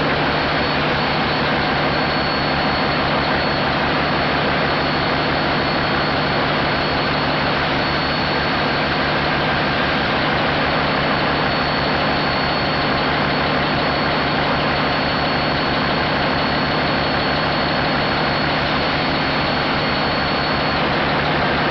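MaK 6M25 six-cylinder medium-speed diesel engine running steadily at close range, a rapid even low pulsing under dense mechanical clatter, with a thin steady high whine above it. Its governor and fuel-rack linkage is vibrating, which the owner puts down to a bad silicone vibration damper on the camshaft.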